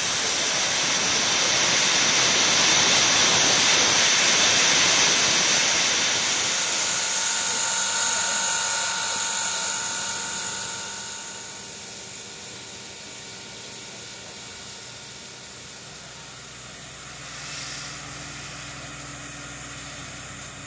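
Reading & Northern No. 425, a Baldwin Pacific steam locomotive, letting off steam in a loud hiss. The hiss dies away about ten seconds in, leaving a much quieter background with faint steady tones.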